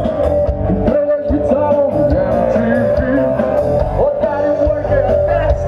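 Live rock band playing over the stage speakers, with electric guitars and a singer's voice carrying a melody over steady drum hits.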